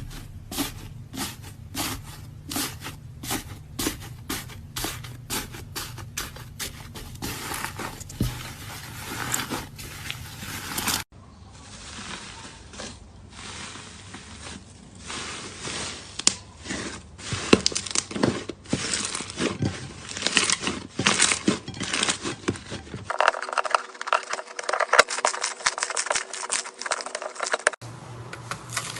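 Slime being squeezed and pressed by hand, giving a fast run of small clicking and crackling pops. The texture changes abruptly three times as one clip cuts to the next.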